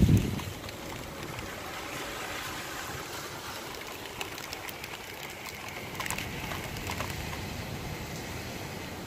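A loud low thunder clap right at the start dies away within about half a second into a steady hiss of rain and wind, with a few sharp taps later on.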